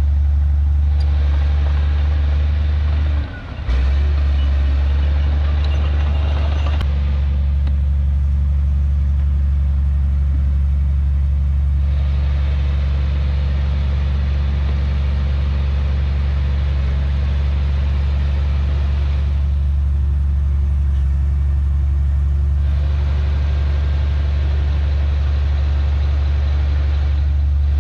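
Heavy diesel earthmoving machine engine running steadily with a strong low drone, dipping briefly about three seconds in.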